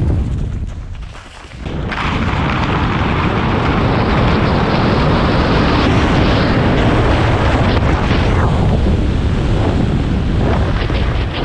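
Wind rushing hard over a helmet-mounted GoPro's microphone, with skis hissing over snow at speed on a ski-jump in-run. The rush drops briefly about a second in, then comes back loud and steady.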